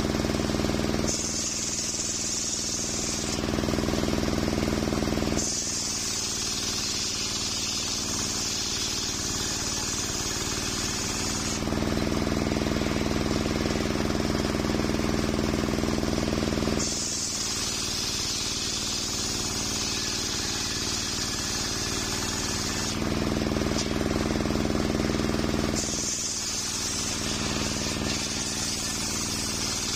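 Large circular saw blade of a homemade sawmill ripping a coconut-wood log lengthwise, with a steady low hum from the drive underneath. The sound alternates every few seconds between a bright hiss and a louder, deeper drone.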